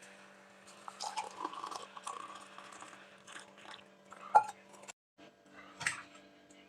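Irregular small clicks, scrapes and clatter of kitchen utensils and dishes being handled, with one sharp knock about four seconds in.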